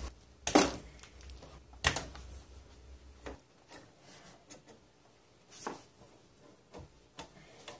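Hand tools clicking and knocking against metal fittings as the brake lines are worked loose from a car's brake master cylinder. Scattered light clicks, with two sharper knocks about half a second and two seconds in.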